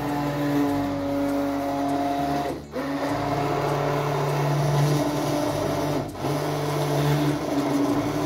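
Electric hand blender running in a steel pot of milk cream (malai), churning it into butter: a steady motor whir that eases off and picks up again briefly twice, about two and a half and six seconds in.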